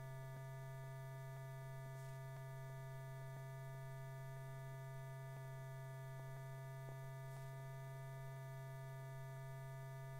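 Steady low electrical hum with fainter higher tones above it and a few faint clicks: the background noise of an old film soundtrack, with no narration or machinery sound.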